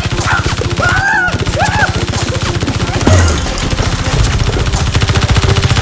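Rapid automatic gunfire, a fast, even, unbroken string of shots.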